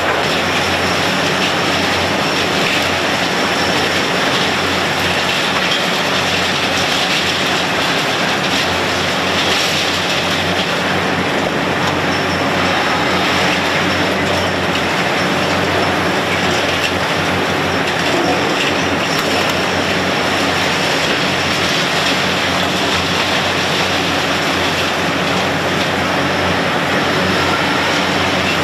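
Large Hitachi demolition excavator working a concrete structure: its diesel engine and hydraulics run steadily under load while concrete breaks and debris falls.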